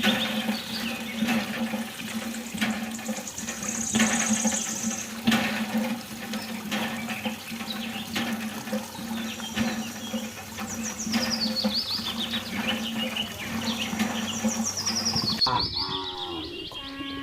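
Cattle mooing amid farmyard sounds, with repeated high, falling chirps and a steady low hum; the sound changes abruptly near the end.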